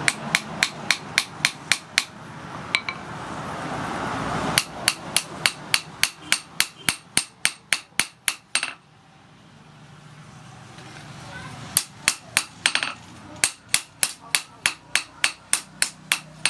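Hand hammer forging spring steel on an anvil: rapid, evenly paced ringing blows, about three a second, in several runs with short pauses between them. A steady noise swells during the pauses.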